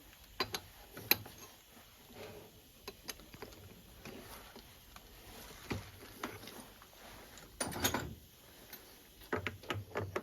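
Metal tools and parts being handled: scattered clicks and knocks, with a denser clatter about eight seconds in and more near the end.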